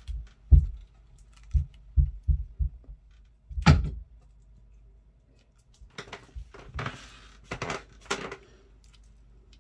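Several soft thuds, a sharper knock about four seconds in, then scratchy rustling: a tabby cat moving and batting about on a carpeted wall-mounted cat shelf with a hanging string toy.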